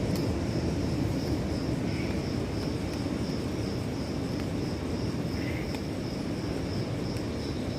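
Distant surf breaking on the beach, a steady low rumble of waves, under a high, evenly pulsing insect chirping.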